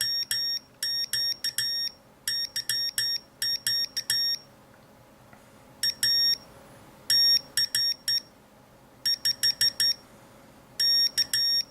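Battery-powered beeper sounding high-pitched Morse code beeps as a homemade hacksaw-blade CW key is tapped: irregular groups of short and longer tones with brief gaps between them, as the key is tried out.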